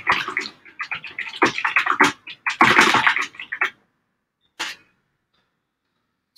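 Quick typing on a computer keyboard, a fast patter of key clicks for about four seconds, then one more single click about a second later as the message is sent.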